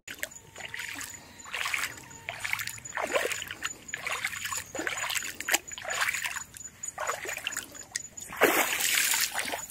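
Water splashing and dribbling in a string of irregular splashes as a dolphin surfaces close beside a kayak. A longer, louder rush of splashing comes near the end. A faint steady high-pitched tone sits underneath.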